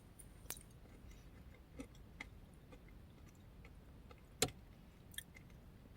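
Faint, scattered small clicks and taps over low room tone, with one louder tap about four and a half seconds in.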